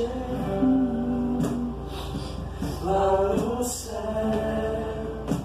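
Worship music: a man singing long held notes over sustained instrumental accompaniment.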